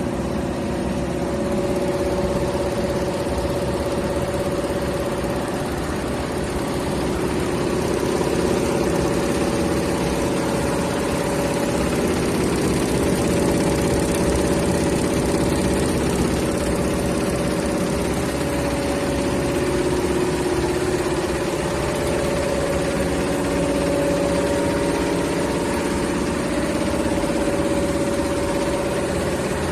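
Embroidery machine running steadily: a fast, even mechanical clatter over a steady hum.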